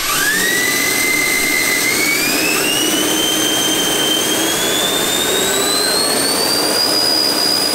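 Electric ducted fans of a large RC airliner model run up on the ground for a thrust test: a loud jet-like whine with a rushing blast of air, climbing quickly at the start, then rising further in pitch in steps to its highest near the end.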